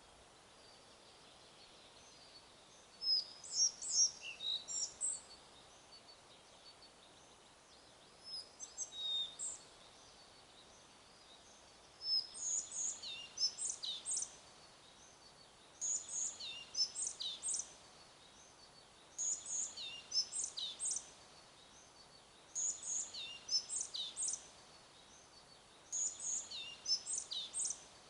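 A songbird singing short phrases of quick, high, falling notes, the phrase repeated about every three and a half seconds, over a faint steady hiss.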